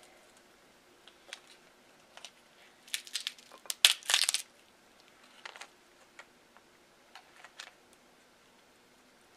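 Crab-leg shells being cracked and snapped apart by hand: scattered sharp cracks and crunches, with a cluster of the loudest ones about three to four seconds in.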